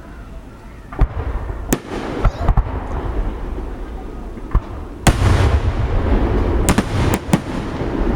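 Aerial fireworks shells bursting: a string of separate sharp bangs, then a loud burst about five seconds in, after which overlapping bursts keep up a continuous rumble punctuated by more bangs.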